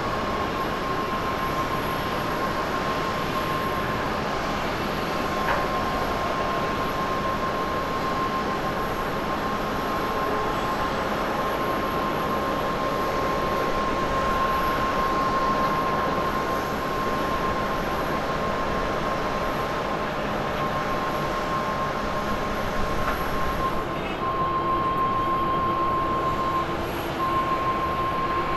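Rolls-Royce Trent 1000 jet engines of a Boeing 787-9 airliner running at low power as it rolls out after landing: a steady rush of noise with a constant high whine, briefly broken near the end.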